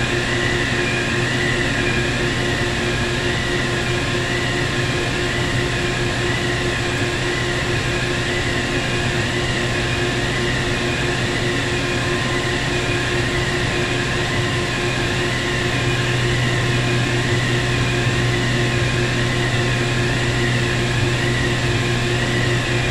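Steady drone of wire-plant machinery: a constant low hum with a high whine that wavers up and down in a regular rhythm.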